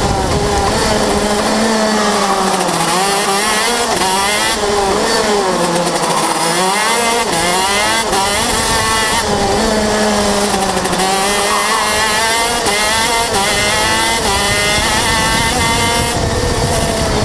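125cc KZ shifter kart's two-stroke engine at racing revs, heard onboard: its pitch climbs and drops again and again as the kart accelerates and slows through the corners.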